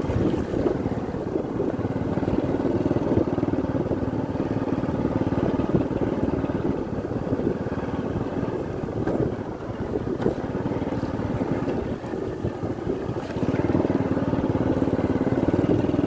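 Motorcycle engine running steadily while riding over a rough, potholed dirt road, with a couple of knocks from bumps around the middle. The engine grows louder near the end.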